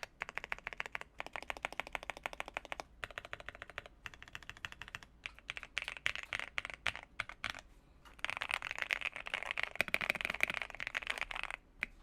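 Typing on an Akko PC98B Plus mechanical keyboard with Akko CS Air switches: a steady run of key clicks that turns into faster, denser typing about eight seconds in.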